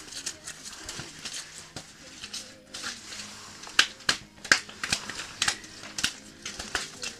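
A trout flopping on bare ice while it is unhooked with forceps and handled: a quick, uneven run of sharp slaps and clicks, sparse at first and loudest in the second half.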